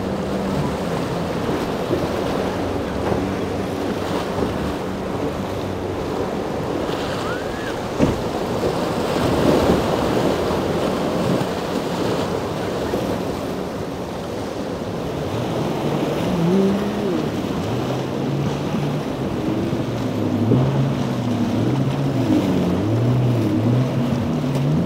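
Outboard boat engines running through rough inlet water, over a constant wash of surf and wind noise on the microphone. There is a single sharp knock about eight seconds in. In the second half, a louder engine's pitch rises and drops again and again as the boat crosses the waves.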